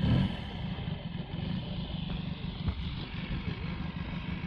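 Large radio-controlled Pitts biplane's engine idling steadily on the ground, under a gusty low rumble of wind on the microphone.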